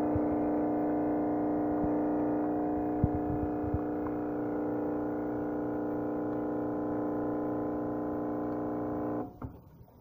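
Nespresso capsule coffee machine's pump humming steadily as it brews coffee into a cup, then cutting off about nine seconds in as the brew finishes.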